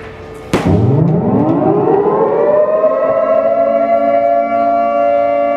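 Civil defence siren winding up. It starts abruptly, its pitch rising for about three seconds before it holds a steady wail. It is sounding the W-hour signal for the minute of silence marking the Warsaw Uprising anniversary.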